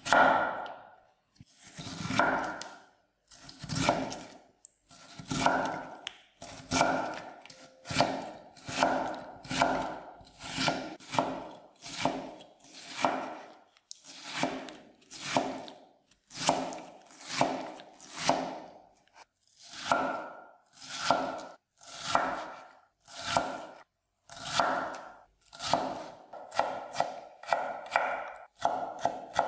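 Chef's knife cutting raw potato on a wooden cutting board, dicing stacked slices into small cubes. The cuts come about once a second, each swelling and fading, a little faster near the end.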